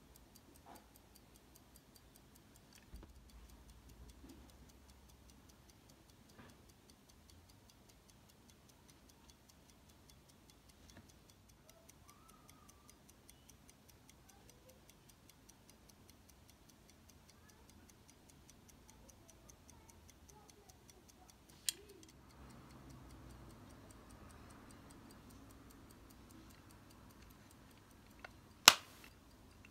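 Vintage Omega pocket watch ticking with a quick, even beat from its lever escapement as the movement runs. Two sharp clicks from the hinged case cover being handled, the louder one near the end.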